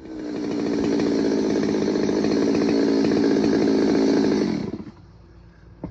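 Stihl MS200T top-handle chainsaw's two-stroke engine running steadily on a test run with a new intake boot fitted, then slowing and stopping about four and a half seconds in. It runs smoothly, a sign the air leak from the torn boot is cured.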